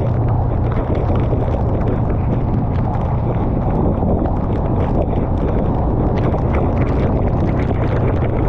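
Honda Rebel 500's parallel-twin engine running steadily at cruising speed, mixed with wind noise on the microphone and tyres hissing on the wet road.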